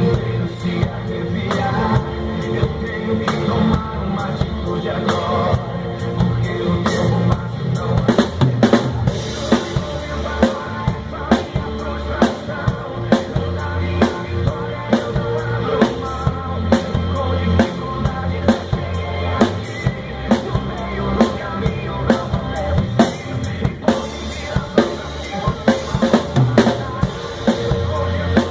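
A drum kit played to a recorded gospel song: steady kick and snare hits with rimshots over the track's bass and held pitched instruments.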